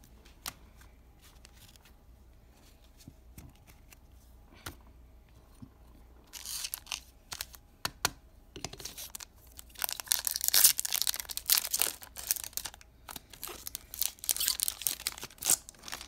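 A baseball card pack being torn open and its wrapper crinkled, in bursts from about six seconds in and heaviest in the second half, after a few light handling clicks.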